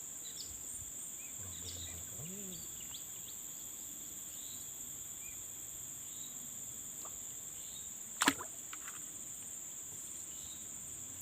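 Steady high-pitched chorus of insects, crickets or cicadas, with a few faint short chirps over it and a single sharp click about eight seconds in.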